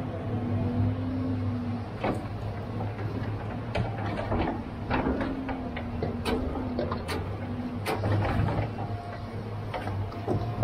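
John Deere tracked log loader running with a steady diesel engine hum while its Rotobec grapple works the log pile. Repeated sharp knocks and clatters of the grapple and logs striking each other as it grabs a bundle of logs.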